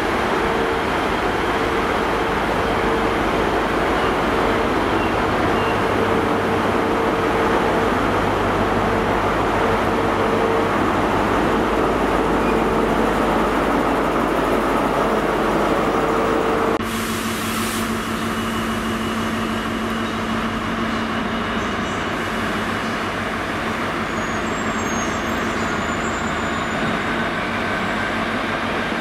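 Class 43 HST power car's diesel engine running as the train pulls into the platform, with a steady held tone over the rumble. About 17 seconds in the sound cuts abruptly to a quieter, steady rumble of a freight train of steel-coil wagons rolling past a standing HST.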